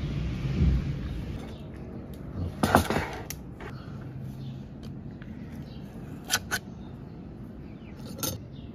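Metal ladle and spoon knocking and scraping against an aluminium pot while thick cornmeal porridge is scooped out: a few sharp clinks, the loudest cluster about three seconds in, two more past the six-second mark and one near the end. A low rumble over the first second.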